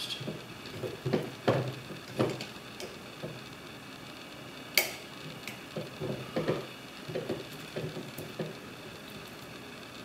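Small irregular metallic clicks and scrapes of a pick and tension tool working the levers inside a Yale lever lock, with one sharper click about five seconds in.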